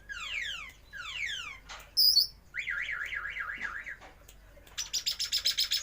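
A bird calling in a varied, mimic-like string. It gives two runs of quick falling whistles, then a sharp high chirp about two seconds in, then an up-and-down warbling note much like a car alarm. It ends with a fast pulsing rattle.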